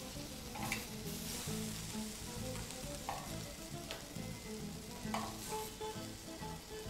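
Charred zucchini slices sizzling on a hot cast griddle pan just taken off the heat, with a few light clicks of metal tongs as the slices are lifted.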